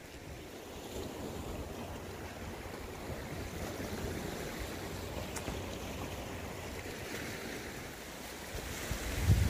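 Sea surf washing steadily against the shore, swelling and easing gently. A gust of wind buffets the microphone near the end.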